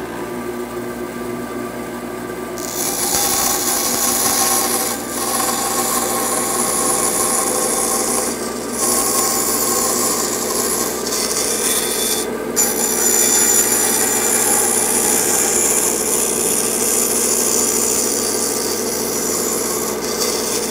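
Bandsaw running, its blade cutting a narrow slot into half-inch plywood. The cutting noise joins the steady machine hum about two and a half seconds in and eases off briefly three times.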